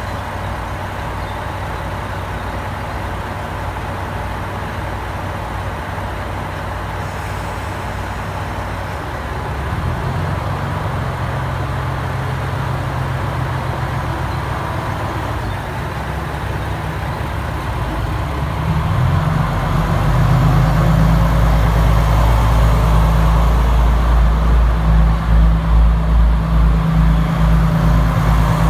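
A train's low, steady machine hum at the station. It grows louder about a third of the way in and again about two-thirds of the way in, then pulses with an even throb near the end.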